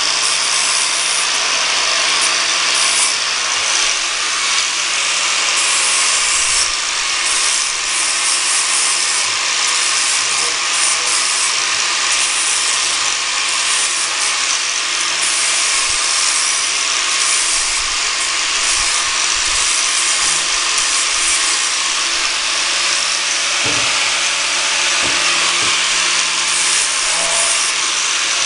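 Angle grinder with a flap disc running steadily under load, grinding the rough spots off the metal edge of a homemade truck ramp.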